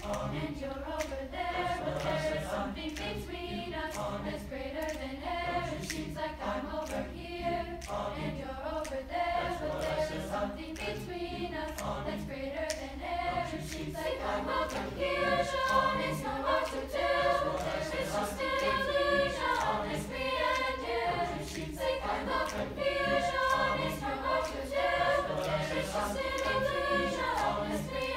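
Mixed high school chamber choir singing together, the sound swelling louder about halfway through.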